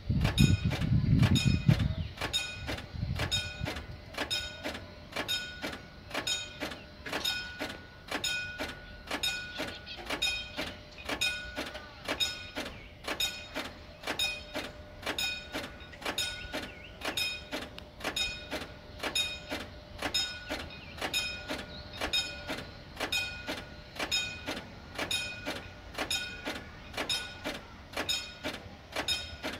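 Level-crossing warning bell ringing in a steady, even rhythm, about one and a half strikes a second, while the crossing's red signals are lit for an approaching train. A low rumble passes in the first two seconds.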